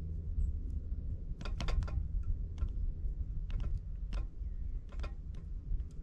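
Great spotted woodpecker pecking at food: irregular sharp taps, a quick run of them about one and a half seconds in, then scattered single taps, over a low steady rumble.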